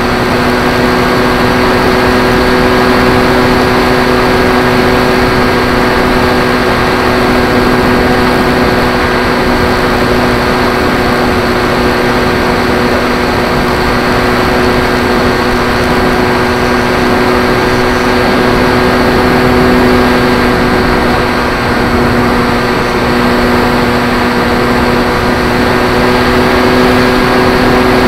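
Electric 3542 brushless motor and pusher propeller of a Zeta Phantom FX-61 flying wing in flight at part throttle, heard from a camera riding on the airframe: a steady hum of several tones over a rush of airflow.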